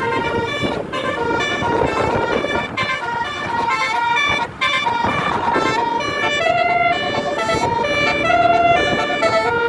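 Bus 'telolet' horns: multi-tone musical air horns sounding held notes that step up and down in pitch like a short tune, over vehicle noise.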